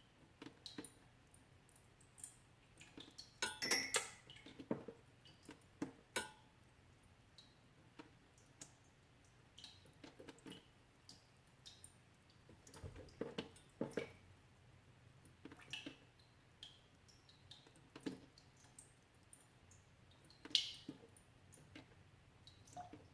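Melting ice dripping, with irregular small drips, clicks and crackles at uneven intervals; a cluster of louder ones about four seconds in and a single sharp one near the end.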